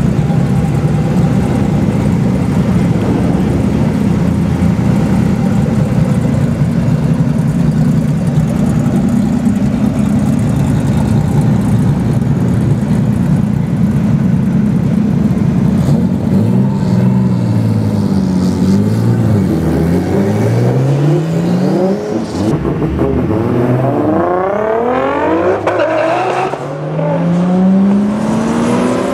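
Toyota Supra and BMW M3 E36 inline-six engines idling with a steady low rumble. About halfway through they are revved up and down several times. Near the end they accelerate hard, the engine pitch climbing as they pull away.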